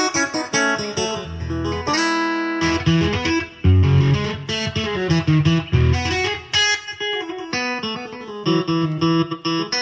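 Yamaha PSR-S970 arranger keyboard played with a guitar voice: a quick run of plucked single notes and chords over bass notes.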